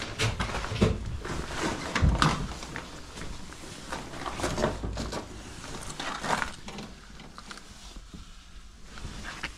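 Irregular clunks and scrapes of things being handled and moved about, heavier in the first few seconds and quieter later on.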